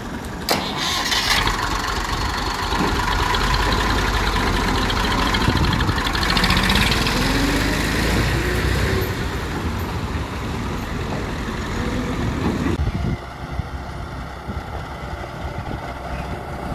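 Tractor engine starting about half a second in, then running and revving up, its pitch rising for a couple of seconds. It cuts off abruptly near the end and gives way to a quieter, steady engine hum in the distance.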